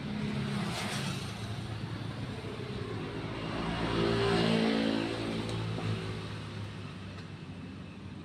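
A motor vehicle's engine passing by: a steady hum that grows louder towards the middle and then fades away.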